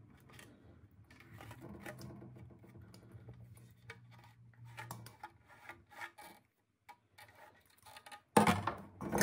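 Stainless steel hand grater tapped and scraped over a steel bowl to knock off grated potato, giving faint scattered clicks and rubs, then a loud metallic clatter near the end as the grater is set down.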